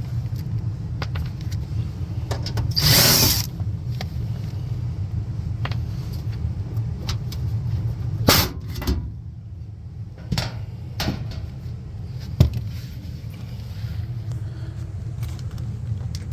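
Handling noises at a gas furnace: a steady low hum under a rasping noise about three seconds in, then several sharp clicks and knocks.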